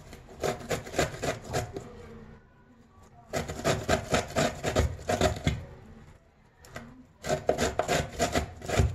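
Peeled fresh ginger root being grated by hand, in quick repeated strokes, about four a second. The strokes come in three runs with short pauses between them.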